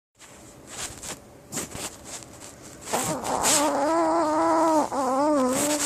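Chiweenie (Chihuahua–dachshund mix) snoring in its sleep: a few soft snuffles and clicks, then from about three seconds in a long, wavering, pitched snore that breaks off for a moment and starts again near the end.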